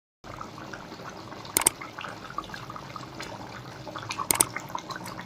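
Water splashing and dripping with small clicks, and two sharp knocks, one about one and a half seconds in and one near the end.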